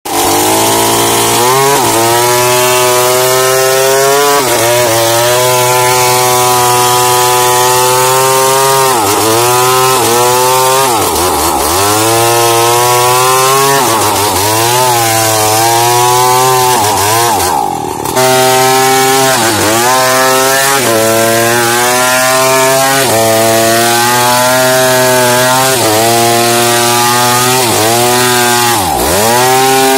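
New West 707 chainsaw cutting into a tree trunk, its engine pitch dipping and recovering every second or two as the chain loads up in the cut. It eases off briefly a little past halfway, then picks up again.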